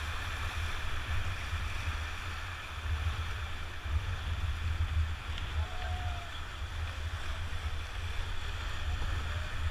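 Bhote Koshi river whitewater rushing steadily around an inflatable raft, over a constant uneven low rumble.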